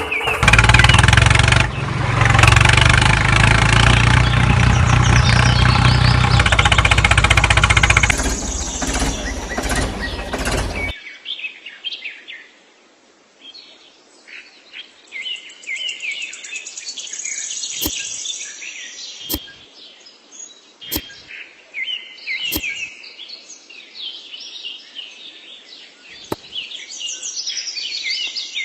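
A loud, dense sound with steady low notes that change in steps for about eleven seconds, then cuts off suddenly. After it, birds chirp and tweet, with a few sharp clicks.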